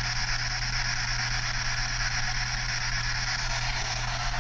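PSB7 spirit box sweeping through radio frequencies, giving out a steady hiss of radio static with a low hum underneath.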